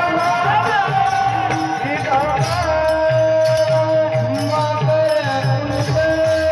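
Marathi kirtan devotional music: a held, slowly bending melody over a steady repeating drum beat.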